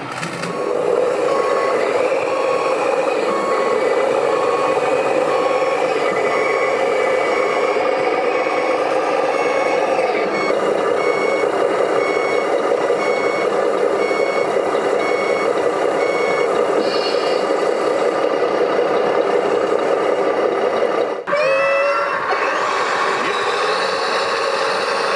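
Sound modules of RC model trucks and construction machines: a steady diesel-engine drone with an electronic reversing beeper sounding at about one beep a second. Near the end the beeping stops and the engine sound changes.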